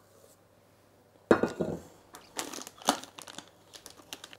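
A sharp knock about a second in, then a disposable plastic piping bag crinkling repeatedly as thick chocolate dough is spooned into it with a spatula.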